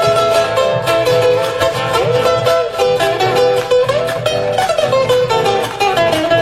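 Instrumental band music with plucked guitar strings and a steady beat, without singing, as a song opens.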